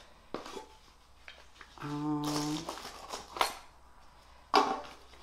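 A person humming a short steady 'mm' note about two seconds in, amid light clicks and rustles of objects being handled and unpacked, with a sharper knock or rustle near the end.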